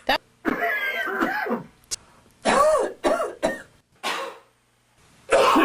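A rapid string of short coughs and throat clearings, one after another with brief pauses between them, the last one near the end the loudest.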